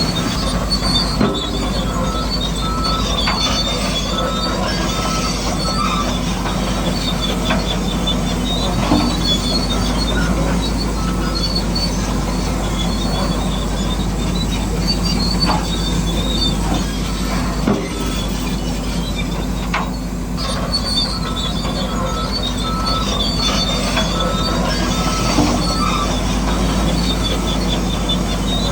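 Radio-controlled model bulldozer working, its electric drive and tracks giving a steady mechanical running noise with a high squealing whine that comes and goes, and a few sharp clicks.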